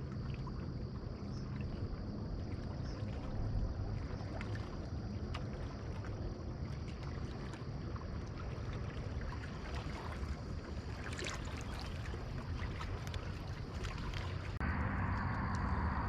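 Wind rumbling on the microphone over a kayak on the water, with many small water slaps and light knocks against the hull. A denser run of ticks comes about eleven seconds in. Near the end the sound changes abruptly to a louder, even rush.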